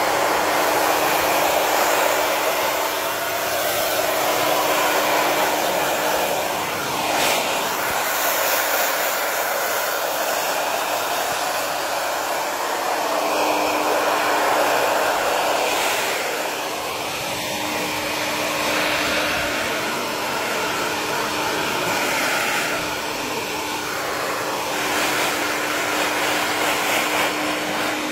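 Blow dryer running without a break, drying a chow chow's rain-wet coat: a steady rush of air over a low motor hum, the rush swelling and easing a little as the nozzle moves through the fur.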